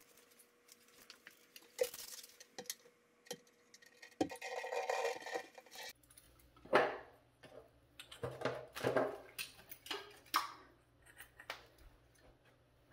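Scattered light knocks, clicks and metallic clinks of tools and fittings being handled, with a couple of seconds of hissing noise about four seconds in.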